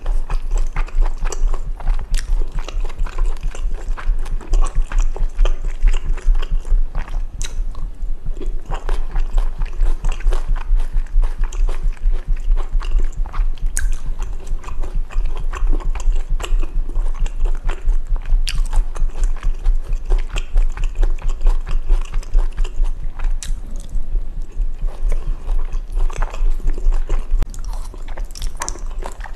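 Close-miked chewing and slurping of jajangmyeon made with chewy Chinese glass noodles, with many small clicks of a spoon and chopsticks against a glass bowl. A steady low thumping runs underneath, which the eater takes for her own heartbeat picked up by the microphone.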